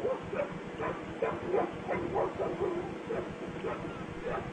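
Pit bull barking in a quick run of short barks, about two or three a second.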